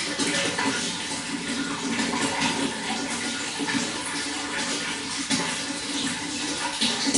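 Running water flowing steadily, with many small splashes and gurgles through the flow.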